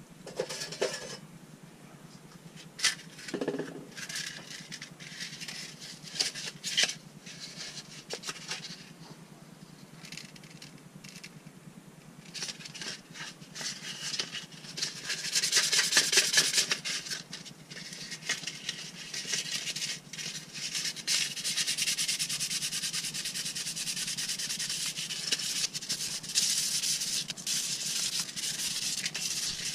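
Bicycle brake pad being sanded on sandpaper: a few scattered clicks and knocks at first, then from about halfway a steady scratchy rubbing of quick repeated strokes, done to stop the brakes squealing.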